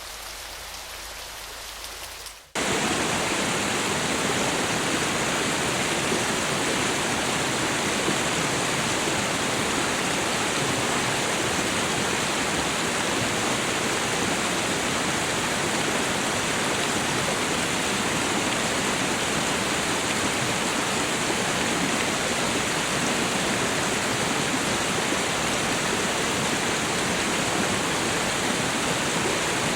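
A quieter, hissing patter of falling water, then an abrupt cut about two and a half seconds in to the loud, steady rush of a waterfall.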